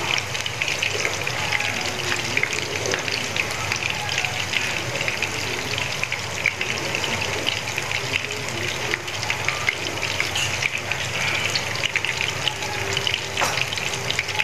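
Small freshwater shrimp fritters in crispy-fry batter sizzling in shallow oil in a frying pan: a steady, dense crackle of fine pops, with one light click near the end.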